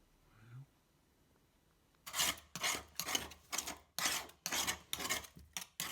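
Hand scraping and rubbing along the bath's sealant joint while it is resealed: a quick run of about a dozen short rasping strokes, roughly three a second, starting about two seconds in.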